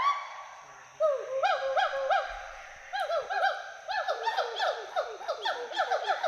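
Western hoolock gibbons calling: a rising note at the start, then from about a second in a run of rising-and-falling whoops that come faster and overlap toward the end. A steady high insect drone runs behind.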